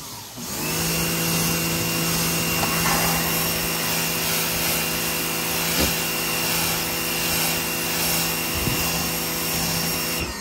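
Electric pressure washer running steadily, its motor humming under the hiss of the water jet spraying a dog's coat and the concrete floor. It starts about half a second in and cuts off just before the end.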